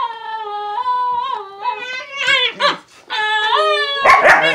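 Siberian husky giving a string of long, drawn-out whining calls that waver in pitch, one rising near the middle; near the end, loud rough barking breaks in as the dogs play.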